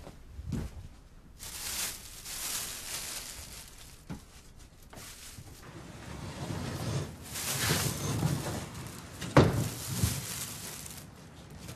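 A wooden lattice sliding door being slid open with a rustling scrape, ending in a sharp knock about nine seconds in and a softer knock just after. Earlier, a few seconds of similar rustling handling noise.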